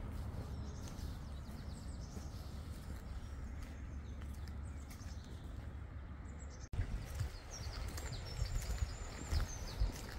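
Outdoor ambience: small birds chirping in short high calls over a steady low rumble. It breaks off abruptly about two-thirds of the way through and resumes with more chirping.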